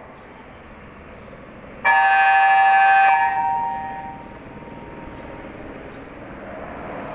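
A horn sounds one loud steady chord of several tones for just over a second, starting suddenly about two seconds in and cutting off. Its lower tones linger and fade away over the next second like an echo, over a steady background hiss.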